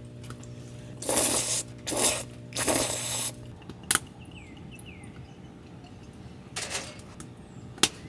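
Handling noise from a glass soju bottle being opened: three short hissing, rustling bursts, then sharp clicks a little before four seconds in and again near the end. A steady low hum stops about three and a half seconds in.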